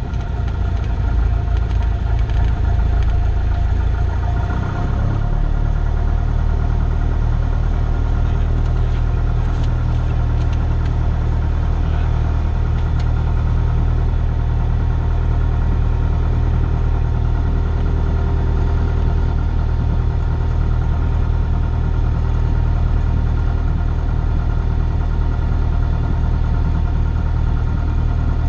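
Cessna 172's piston engine and propeller running steadily, heard from inside the cockpit. The low drone shifts about five seconds in, then holds even.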